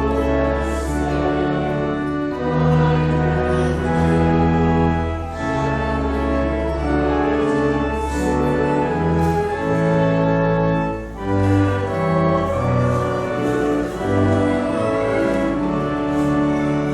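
Church organ playing a slow passage of held chords over deep bass notes, the chords changing about every second.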